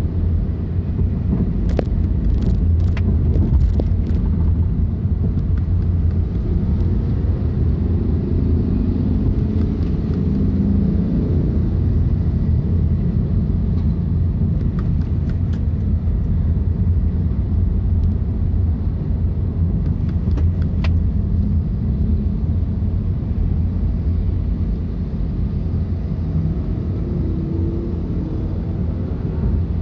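A car being driven: a steady low rumble of engine and road noise, with a few faint clicks scattered through it.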